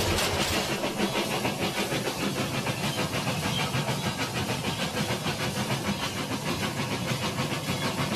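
Toy steam train's steady, rapid chuffing with a hiss. A short clatter right at the start as the locomotive strikes the toy trailer on the crossing.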